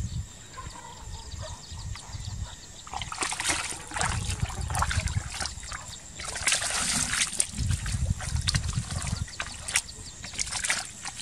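Bare feet squelching and splashing through soft wet mud and shallow puddles, in irregular bursts.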